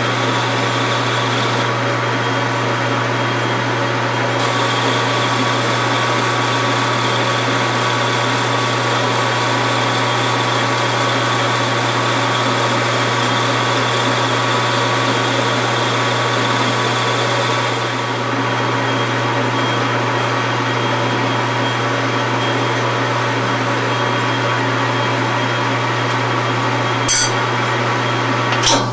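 Metal lathe running steadily with a low hum and a faint high whine as a cut is taken in a billet aluminum water tee; a sharp click near the end.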